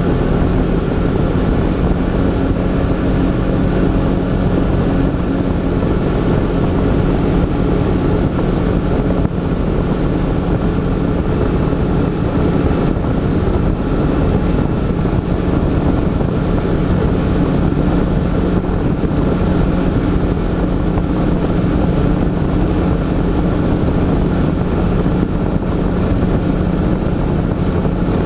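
Engine of a side-by-side off-road vehicle running steadily under way on a dirt and gravel trail, a constant drone with a steady low hum, mixed with tyre and wind noise.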